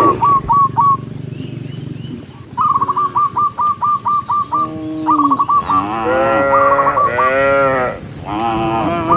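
Cattle mooing, several long calls one after another in the second half. A bird calls throughout in quick runs of short repeated notes.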